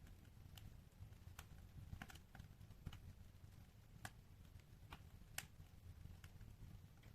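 Wood fire in a fireplace crackling: irregular sharp pops and snaps, the loudest about three and five and a half seconds in, over a low steady rumble.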